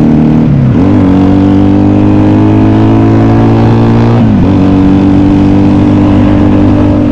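Honda Benly 125T's parallel-twin four-stroke engine running under way through a pair of cheap scrapyard silencers. It holds a steady note that dips and recovers twice, about a second in and about four seconds in, as the revs drop and pick up again.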